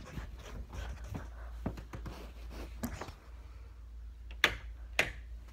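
Handling noise from a phone being carried, with scattered soft knocks and two sharp clicks about half a second apart near the end.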